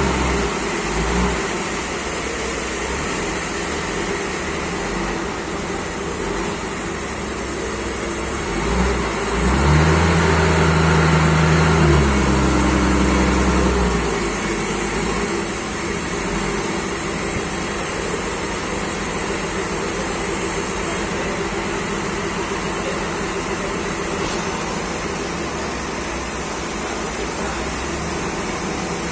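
Forklift engine running under load as it pushes a large log onto a sawmill carriage, revving up louder for a few seconds about a third of the way in. A steady high whine runs behind it.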